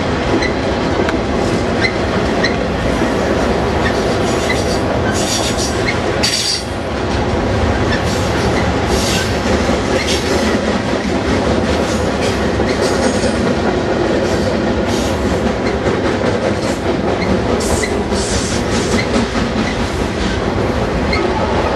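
Freight cars of a manifest train rolling past at close range: a steady, loud rumble of steel wheels on rail, with clicking over the rail joints. Brief high-pitched wheel squeals come and go every few seconds.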